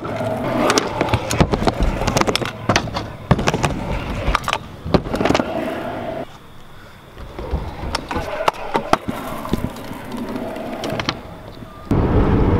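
Freestyle kick scooter rolling over skatepark ramps, its wheels hissing on the surface, with repeated sharp clacks and knocks as the wheels and deck hit and land on the ramps. The rolling drops quieter for a moment about halfway through.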